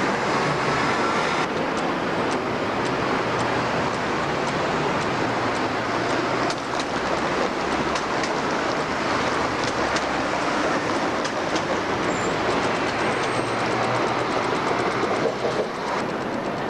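Busy city street traffic: buses and cars passing over tram tracks and a tram running on its rails, a steady loud rumble with many short clicks and rattles.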